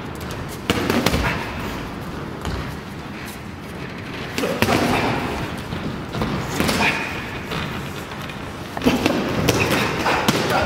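Padded boxing gloves landing punches during sparring: irregular clusters of dull thuds and slaps, the first about a second in, with more around five seconds and near the end.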